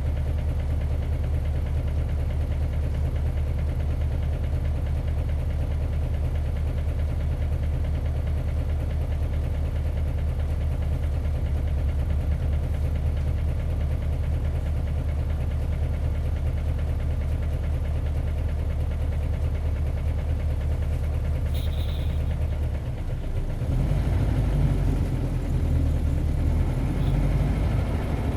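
Isuzu 8PE1-S V8 diesel of an Isuzu Cubic city bus heard from inside the bus, running at a steady, even note for most of the stretch. About 22 seconds in there is a short hiss, then the engine dips briefly and comes back louder and rougher.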